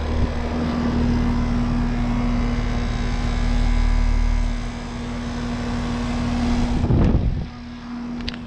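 Heat pump outdoor unit running: a steady electrical hum from the compressor with the rushing of its condenser fan. About seven seconds in there is a brief louder rustle, and the sound then drops off.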